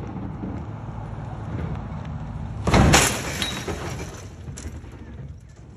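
Pickup truck running close by with a steady low rumble. About three seconds in there is a loud, sudden crash-like noise.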